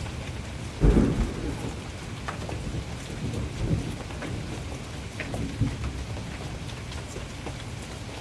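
Steady rain falling, with scattered drops hitting a surface, and a sudden thunderclap about a second in. Weaker rumbles of thunder follow a few seconds later.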